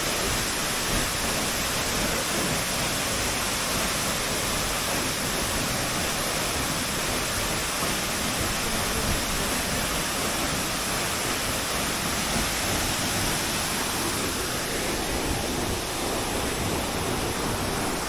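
Waterfall: a steady rush of water plunging into a shallow pool.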